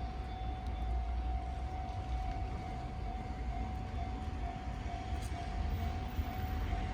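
Railway level-crossing alarm ringing, a repeated electronic ding at one steady pitch about twice a second, over a low rumble.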